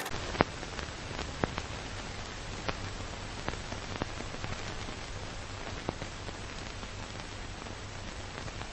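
Old-film crackle sound effect: steady hiss with a low hum and irregular pops and clicks, roughly one a second, like a worn film soundtrack running through a projector.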